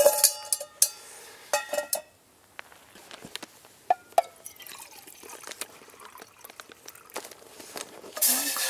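Stainless steel camping pot and folding steel twig stove clanking as the pot is handled and set on the stove: ringing metal knocks at the start and about two seconds in, lighter clinks around four seconds, then a short rush of noise near the end.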